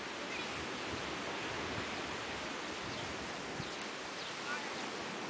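Steady wash of gentle surf with wind on the beach, with a few faint short high chirps now and then.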